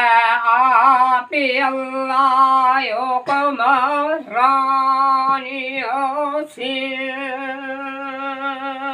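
An elderly man singing a kalam unaccompanied in a high, wavering voice, in phrases with short breaks for breath, ending on one long held note over the last two seconds.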